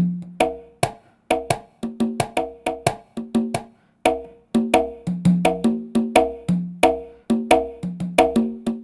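Roland SPD-20 percussion pad sounding its sampled congas, struck with drumsticks in a quick rhythmic pattern. The hits come several a second and alternate between low and higher conga tones, with brief gaps between phrases.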